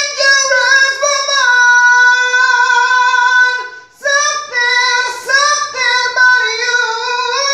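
A man singing unaccompanied in a high pop register, with quick runs, a long held note through the middle, a short break about four seconds in, then more runs ending on another held note.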